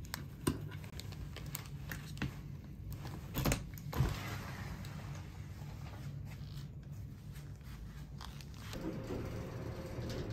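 A wall rocker light switch clicking, then a few scattered soft knocks over a steady low hum. Near the end the background hum changes and a faint steady tone joins it.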